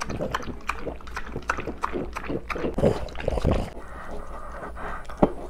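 French bulldogs licking and lapping food from small ceramic bowls: a quick run of wet smacking clicks, loudest about three seconds in and then easing off, with one sharp knock near the end.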